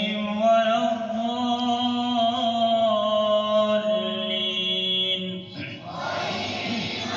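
A male qari reciting the Quran in the melodic tajweed style, drawing out one long ornamented note. About six seconds in, many voices call out together.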